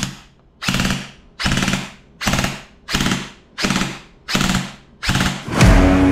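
Lancer Tactical LT-34 compact M4 airsoft electric gun firing short full-auto bursts, about eight in a row, evenly spaced under a second apart, each a brief rapid rattle of shots. Near the end, music comes in with a low boom.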